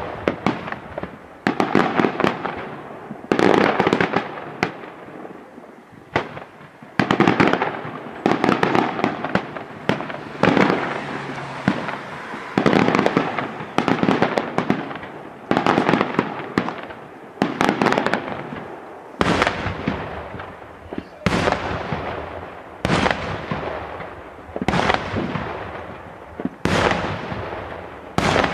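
Daytime aerial fireworks shells bursting in a rapid series of loud bangs, about one every one and a half to two seconds, each trailed by crackling. For the first two-thirds the crackle runs together between the bangs; in the last third it thins out, leaving cleaner single bangs.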